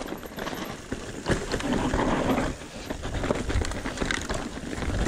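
A mountain bike descends rocky singletrack. Its tyres rumble and crunch over dirt and loose stones, and the bike rattles in many sharp, irregular knocks. There is a low rumble of wind on the microphone throughout.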